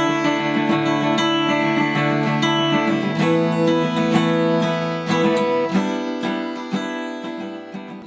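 Instrumental intro music, with a chord change about three seconds in, fading out near the end.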